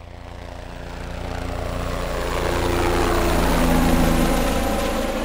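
A running engine: a steady low drone with a few held tones above it, fading in, swelling to its loudest about four seconds in, then fading away.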